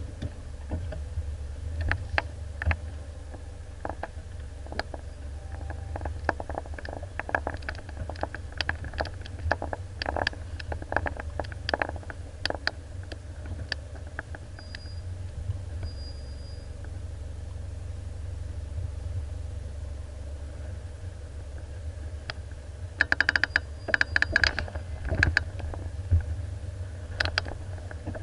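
Engine drone of a 4WD heard from inside its cab while driving slowly over a rough dirt track, with frequent clicks and rattles as the vehicle jolts over the ground. The rattles thin out midway and come back as a dense burst about two-thirds through.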